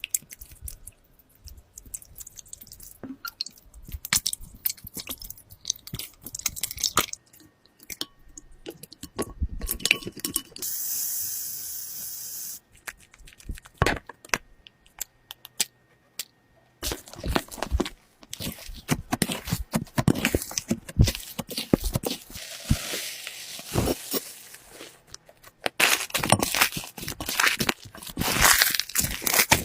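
Slime being squeezed, poked and pressed by hand, giving dense, irregular crackling clicks and crunches. A steady hiss lasts about two seconds, about ten seconds in.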